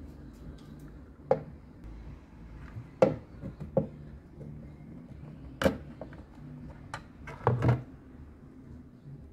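Hard plastic clicks and knocks as a strobe light housing is handled and pressed into a car's plastic grille: about half a dozen separate sharp taps spread over several seconds, with a close pair near the end.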